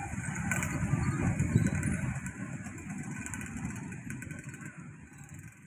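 Low, noisy vehicle rumble fading steadily away over several seconds and dying out near the end.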